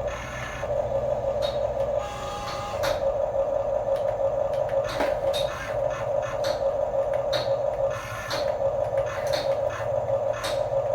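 Small electric motor and plastic gearbox of a Huina remote-control construction toy whining, running in spells of a few seconds with short breaks, with scattered clicks.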